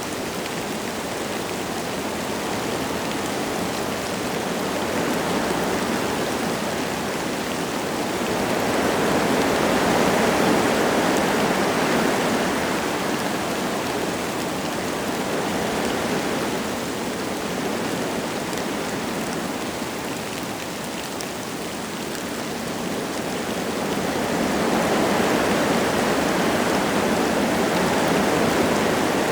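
Wind gusting through forest trees with light rain falling, a steady rushing noise that swells in gusts a third of the way in, again around the middle, and near the end.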